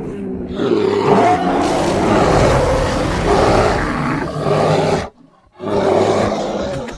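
Creature sound effect of a giant prehistoric bear, Arctotherium bonariense, built from bear recordings: a long, loud roar, a half-second break, then a second, shorter roar.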